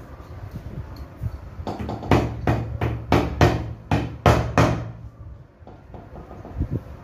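A ball-peen hammer driving the steel nails of plastic wire clips into a wooden strip: a quick run of about a dozen sharp blows starting about two seconds in and lasting about three seconds, then one lighter tap near the end.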